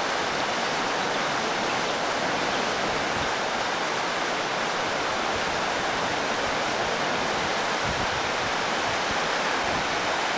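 Flooded river rapids: a steady rush of white water pouring over rocks, unbroken throughout.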